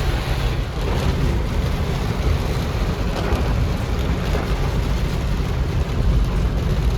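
Rain pattering on a moving car, over a heavy, steady rumble of road and engine noise.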